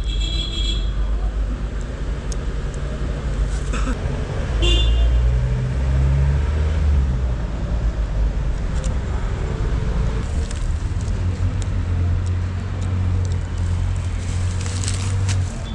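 Motor vehicle traffic: a steady low engine rumble, with two short high-pitched tones, one at the start and one about five seconds in.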